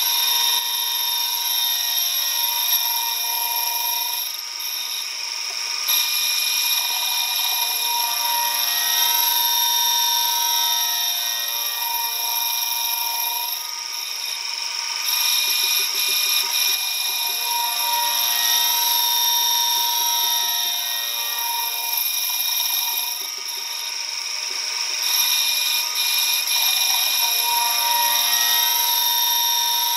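Metal lathe turning an alloy wheel centre, the cutting tool shaving metal with a steady high-pitched ringing, dipping slightly in loudness about every ten seconds.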